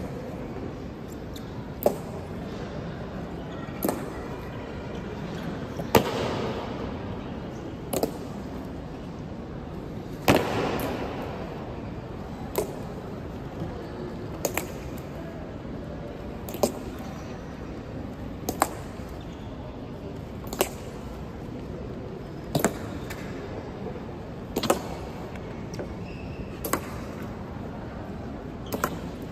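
Honor guard's slow ceremonial march: sharp boot strikes on a hard floor about every two seconds, a few ringing with a long echo, over a steady crowd hubbub.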